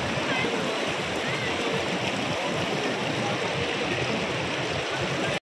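Mountain stream rushing over rocks, a steady wash of water noise that cuts off abruptly just before the end.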